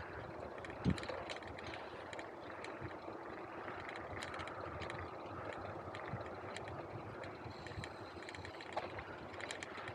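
Bicycle being ridden along a street: a steady rolling noise from the tyres, scattered small clicks, and a low bump about a second in.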